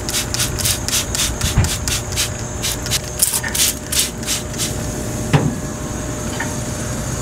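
Trigger spray bottle squirting water onto ribs on a grill grate in a quick run of hissy spritzes, about three or four a second, that stops about four and a half seconds in, over a steady hum.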